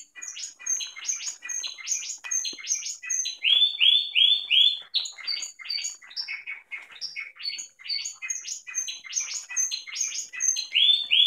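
Young male Spanish Timbrado canaries of the discontinuo (broken-song) type singing: a choppy run of separate chirps and short trills, with a series of four loud rising-and-falling notes about three and a half seconds in and another near the end.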